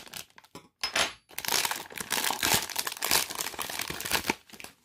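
Foil-lined plastic blind bag crinkling and crackling as hands handle it and tear it open, a dense run of irregular crinkles after a couple of short pauses in the first second.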